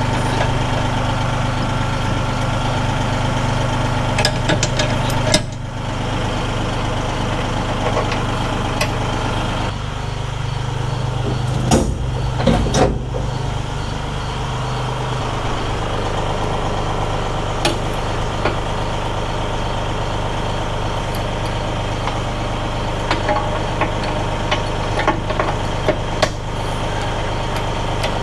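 Massey Ferguson tractor engine idling steadily, with scattered metallic clicks and clanks as the chipper's three-point hitch links and pins are fitted.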